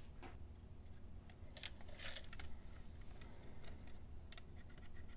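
Faint, intermittent rubbing and scraping of an abrasive track-cleaning block against a model locomotive's metal wheels as they are hand-cleaned, with light handling clicks of the plastic shell. A few short scratches, the clearest about two seconds in.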